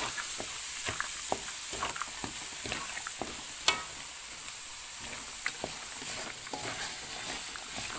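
Minced chicken and diced carrots sizzling in a wok while a spatula stirs them, scraping and clicking irregularly against the pan, with one sharper clack about halfway through.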